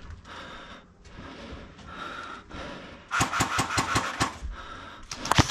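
Airsoft guns firing in rapid strings of sharp cracks: one run starting about three seconds in and a louder one near the end.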